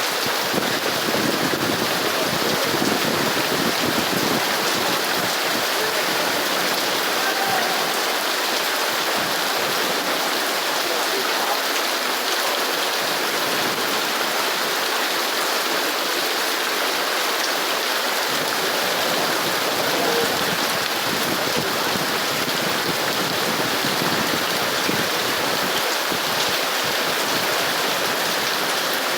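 Heavy rain falling steadily on hard surfaces, an even, unbroken hiss.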